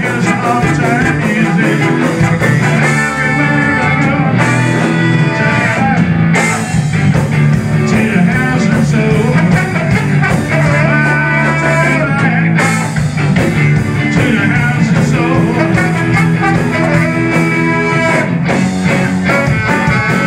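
Live ska band playing loudly: trombone and saxophone play held horn lines over electric guitar, bass and drums, with singing.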